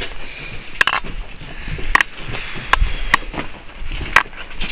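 Footsteps on a gritty, debris-strewn floor: sharp scuffs and knocks at an uneven walking pace, about one a second.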